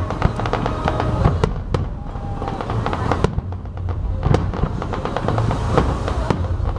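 Fireworks display going off in quick succession: many sharp bangs and crackles over a continuous low rumble.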